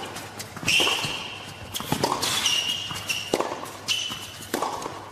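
Tennis rally between two players: racket strikes on the ball about every second and a quarter, four in all.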